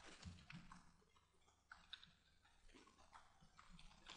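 Faint, irregular keystrokes on a computer keyboard as a word is typed out letter by letter.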